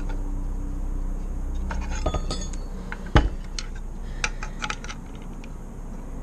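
Light metallic clinks and taps as an aluminium Subaru valve cover and a brass barb fitting are handled, with one sharper knock about three seconds in.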